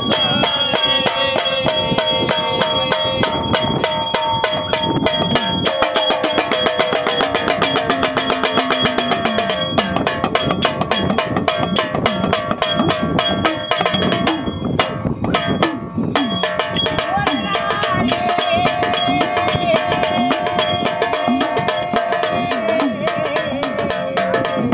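Waghya devotional folk music: fast, steady percussion strokes under a long-held melodic line, with a brief break about fifteen seconds in.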